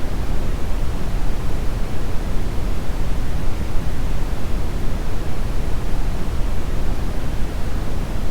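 Brown noise: a steady, even rumbling hiss, heaviest in the low end and softer in the highs, with no changes or events.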